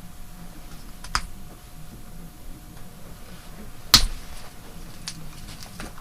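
Small sharp clicks and taps from a seam ripper and coat zipper being worked as zipper stitching is picked out, a few scattered clicks with the loudest about four seconds in.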